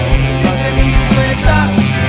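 Punk-leaning rock band playing, with the drums keeping a steady beat and cymbals splashing every half second or so.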